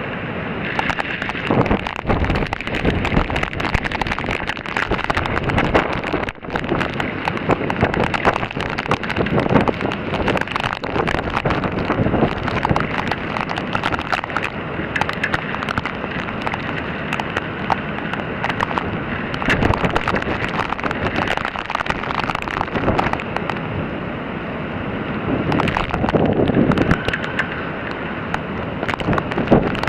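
Typhoon wind gusting and buffeting the microphone, with rain falling; a stronger gust swells near the end.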